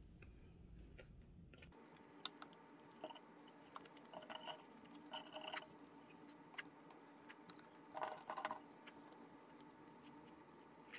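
Close-up eating sounds: chewing and slurping food from a spoon, with sharp clicks of a metal spoon and fork against a ceramic bowl.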